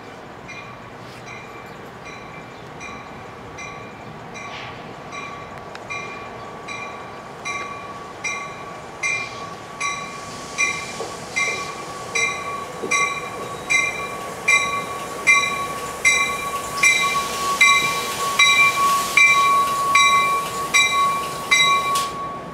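An NJ Transit commuter train's warning bell ringing at a little over one strike a second, growing steadily louder as the train approaches, then cutting off suddenly near the end. Under it are a steady high squeal, likely the train's wheels or brakes, and the rush of the cars rolling by.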